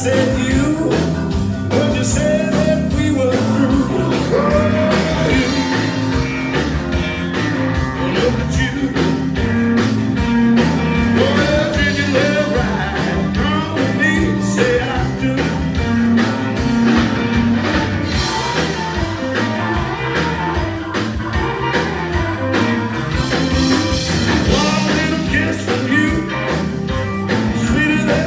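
Blues band playing live: electric guitar lines with bent notes over bass, drums and keyboard, at a steady driving pace.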